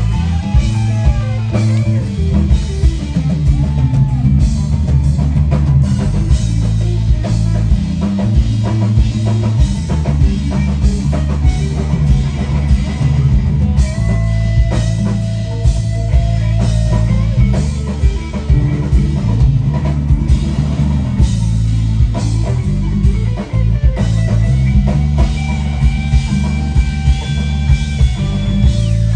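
A live band plays, with electric guitar, bass and drum kit to the fore and sustained, bending lead notes over a continuous groove.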